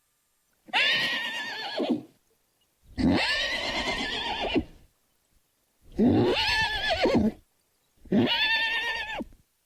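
Horse whinnying, four separate whinnies of about a second and a half each, their pitch wavering, with short silent gaps between.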